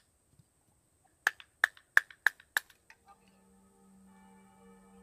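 Quick sharp knocks, five in a row about three a second, from a Pöul Tools full-tang stainless bushcraft knife splitting firewood on a wooden chopping block. Soft music with held, ringing tones comes in about three seconds in.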